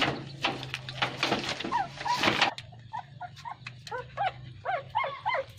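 Rustling and clicking, like a plastic packet being handled, then from about halfway through a quick run of short, high, squeaky animal calls, several a second, each rising and falling in pitch.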